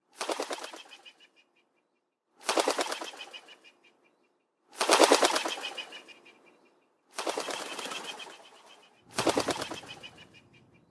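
Hummingbird wing-flutter sound effect: five short bursts of rapid fluttering about two seconds apart, each fading out over a second or so.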